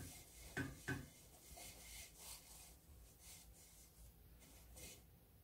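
Faint rustling of a cotton cloth as hands smooth and tuck it over dough, with two soft taps about half a second and a second in.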